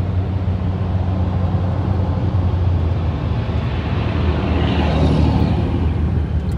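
A car driving on the highway, heard from inside: a steady low engine and road drone. A rush of noise swells and fades about five seconds in.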